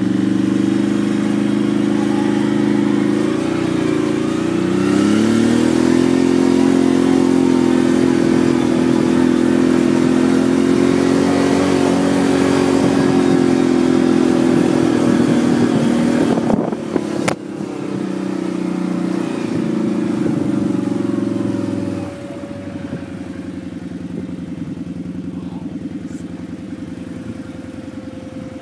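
ATV engine running steadily under throttle while riding over grass, its note wavering briefly early on and a single sharp click partway through. Near the end it eases off to a lower, quieter running.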